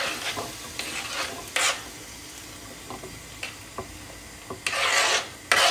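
Knife blade scraping chopped fresh tomatoes across a wooden chopping board into a hot frying pan, where they sizzle. A few short scrapes come first, then longer, louder scraping near the end.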